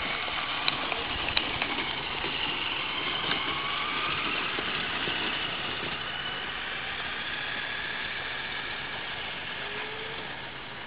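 Traxxas Slash RC truck driving while towing a boat trailer: a thin high whine that drifts up and down over a steady rushing noise, with two sharp clicks about a second in. It fades near the end as the truck moves away.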